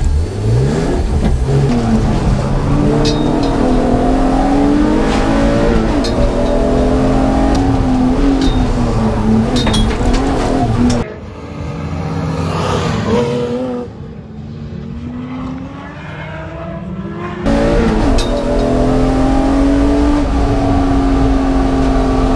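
BMW E36's M54B30 straight-six engine being driven hard on a race track, its revs climbing and dropping again and again through gear changes and lifts off the throttle. About halfway through, the sound goes quieter and duller for several seconds, then the engine is back at full volume.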